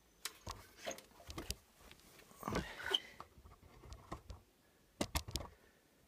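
Faint handling noise: scattered light clicks and knocks with some soft rustling, then three sharp clicks in quick succession near the end.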